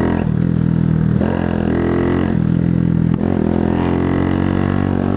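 125cc cruiser motorcycle engine accelerating under way. Its note climbs and drops back about four times as it shifts up through the gears.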